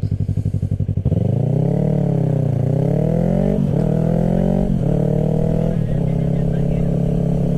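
Sport motorcycle engine idling at the lights, then pulling away hard, with the exhaust baffle fitted. The revs rise and drop with a short break at each of several upshifts before settling to a steady cruising note.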